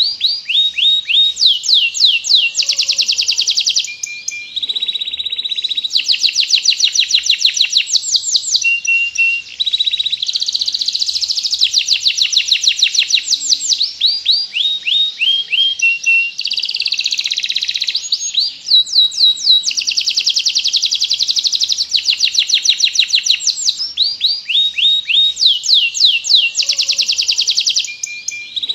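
Domestic canary singing a long, continuous song: fast rolls of rapidly repeated downward-sweeping notes alternating with steady held whistles, broken only by brief pauses.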